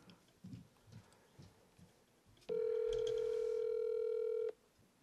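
Telephone ringback tone from a mobile phone held to the ear while an outgoing call rings: one steady ring about two seconds long, starting about halfway through, after a stretch of near quiet.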